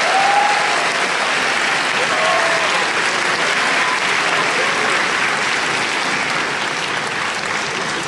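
Audience applauding steadily, easing off slightly near the end.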